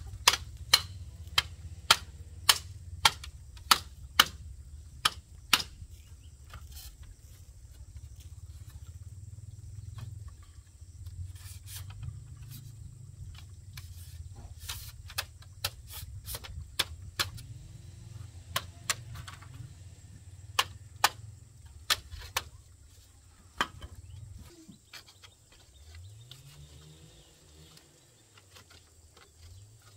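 Repeated sharp blows of a hand tool striking wood or bamboo, about two a second at first and then more spaced out, over a low steady rumble.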